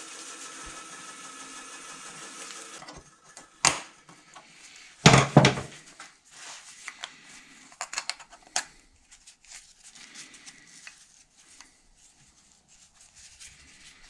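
Metal clinks and knocks as a small used diesel fuel filter canister is pried open with a screwdriver on a workbench, with the loudest knocks about five seconds in and the clicking dying away after about nine seconds. A steady hum stops about three seconds in.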